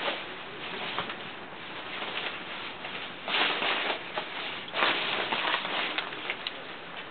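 Rain pattering steadily, with small drop clicks and two heavier surges about three and a half and five seconds in.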